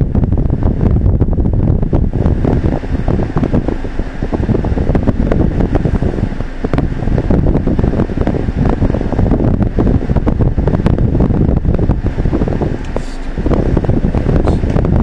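Steady rumbling noise inside a stationary car's cabin, picked up by a dashcam microphone, with scattered light knocks and a few brief dips in level.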